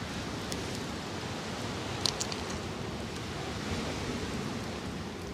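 Light wooden clicks and taps as thin sticks are laid across stones over a charcoal fire, the clearest about two seconds in, over a steady rushing background noise.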